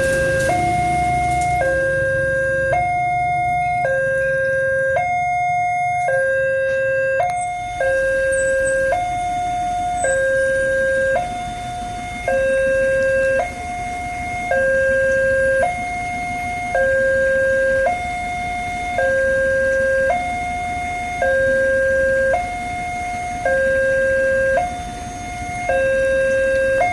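Railway level-crossing warning siren sounding a steady two-tone hi-lo signal: a higher and a lower tone alternate, each held about a second, repeating evenly.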